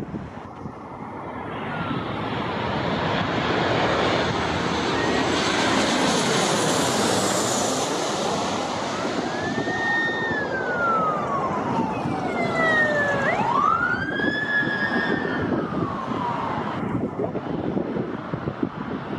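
United Boeing 737-800 twin-engine jet passing low overhead on landing approach: its jet noise swells to a peak a few seconds in, then eases off as it goes by. From about halfway through, an emergency-vehicle siren wails twice, each cycle rising, holding and sliding down in pitch.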